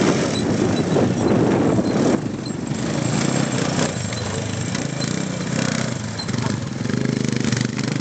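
Small quad bike engines running and revving as the quads ride over dirt bumps, loudest in the first couple of seconds as one passes close, then a little lower as it pulls away.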